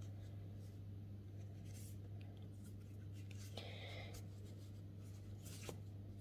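Faint rustling and scraping of chunky textile yarn being pulled through stitches on a crochet hook, with a brief louder rustle about three and a half seconds in, over a steady low hum.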